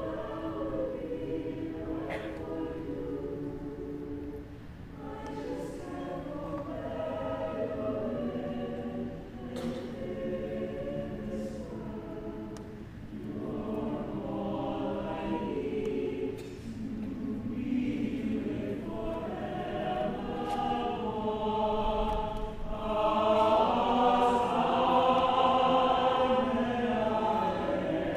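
Mixed SATB choir singing in four-part harmony, in phrases, swelling louder in the last few seconds.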